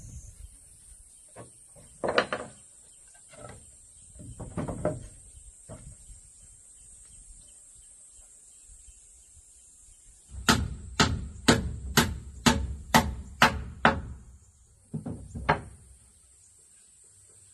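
Hammer blows on wooden boards: a few scattered knocks, then a run of about eight even strikes, two a second, and two more near the end. A steady high insect shrill runs underneath.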